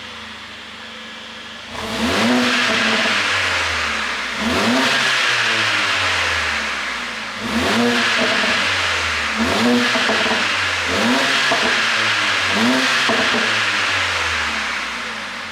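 Mercedes-AMG CLA 45's turbocharged 2.0-litre four-cylinder engine, on a pop-and-crackle ECU tune, being revved through its exhaust: six quick blips, each rising and then falling back toward idle.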